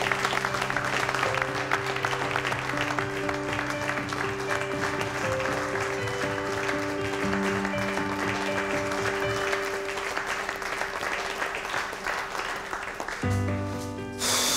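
A small group of diners clapping, with background music playing under it; the applause dies away near the end while the music carries on.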